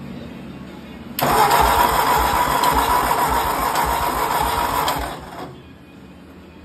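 The gasoline engine of a 1963 Ford 4000 Industrial tractor being cranked by its starter for about four seconds, with even compression pulses, without catching; the starter cuts out and the sound dies away. The engine won't fire because of a faulty part in the distributor.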